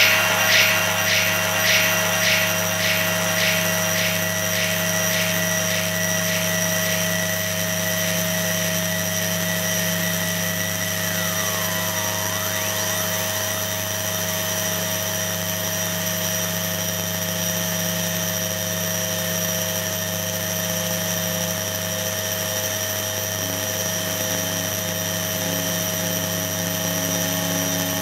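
Experimental electronic noise from analog machines: a dense steady buzzing drone of several held tones over a hiss. A rapid pulsing, about two or three beats a second, fades away over the first few seconds. About eleven seconds in, a few short falling chirps repeat and fade.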